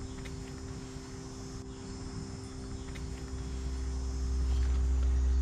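Steady low background hum, with a deeper rumble swelling in over the second half and growing louder. A few faint clicks.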